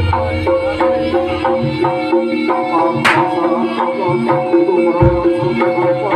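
Live jaranan gamelan music: a kendang hand drum plays a quick rhythm over steady held pitched tones. A single sharp crack sounds about three seconds in, and a deep low stroke about five seconds in.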